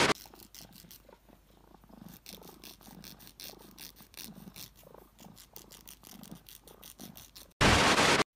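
Tabby cat purring softly while its claws are filed, with faint scratching strokes of the nail file. Near the end comes a short loud burst of TV static.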